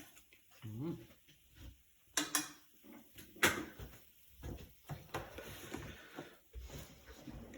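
Kitchen handling sounds: a series of light knocks and clacks, the sharpest about three and a half seconds in.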